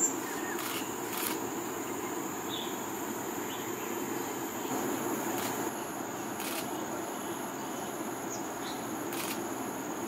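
Steady high-pitched insect drone over a low, steady background rumble, broken by about five brief, sharp sounds.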